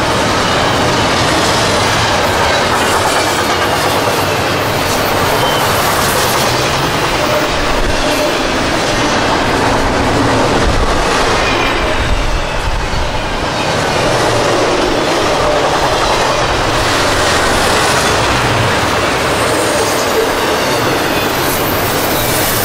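Freight train cars rolling steadily past on a curve, wheels clattering over the rail joints, with some wheel squeal.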